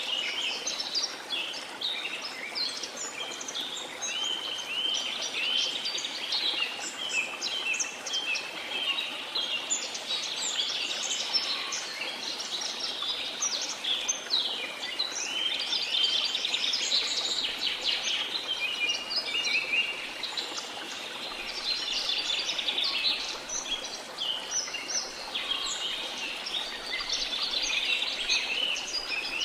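Many birds chirping and trilling at once in a dense, unbroken chorus over a steady rush of falling water from a waterfall.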